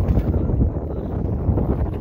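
Wind buffeting the microphone: a loud, low rumble that rises and falls.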